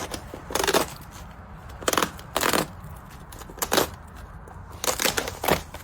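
Crisp wafer biscuits being crunched by a pet eating: about six loud, irregular crunches.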